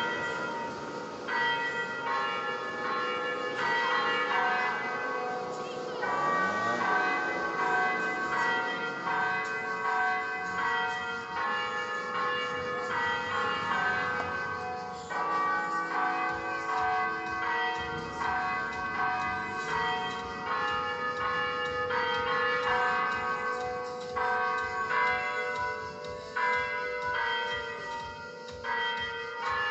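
Electronic church bells, a loudspeaker carillon system playing recorded bell sounds, ringing a continuous peal of many overlapping bell strokes that each ring on.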